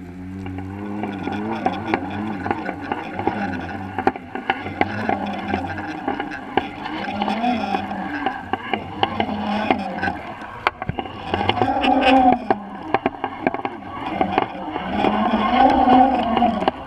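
Underwater audio of a boat motor droning, its pitch wavering up and down, with frequent sharp clicks and knocks from the fishing rig and camera in the water.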